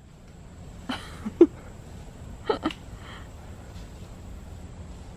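A few brief voice sounds, short calls or grunts, over steady low background noise.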